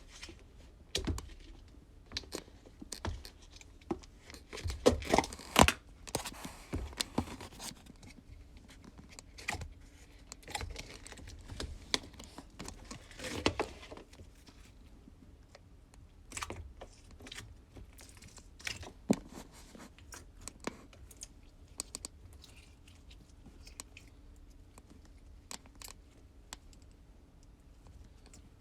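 Slime being squished and stretched by hand: an irregular run of sticky clicks and pops, busiest in the first half and sparser later.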